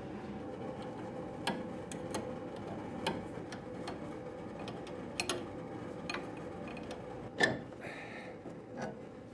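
Wrench and hand tools clinking on the rear anti-roll bar drop link and its bolts as the link is unbolted. Irregular sharp metal clicks, the loudest about seven seconds in, over a steady faint hum.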